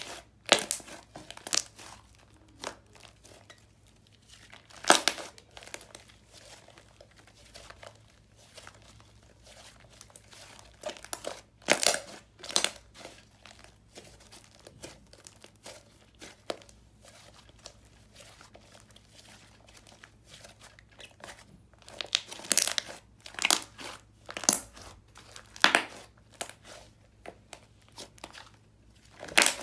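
Hands squishing, folding and pressing a thick, creamy slime firmed with activator, giving sticky popping and crackling clicks at irregular intervals, busiest in a run of pops near the end.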